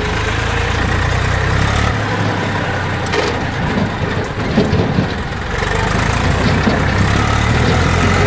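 Eicher 380 Super DI tractor's three-cylinder diesel engine running as the tractor drives, heard from the driver's seat. The low engine note thins out for a few seconds in the middle, with a few knocks and rattles, then comes back steady.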